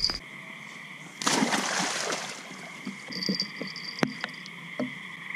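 A hooked catfish splashing in shallow floodwater for about a second, starting about a second in, over a steady chorus of insects and frogs.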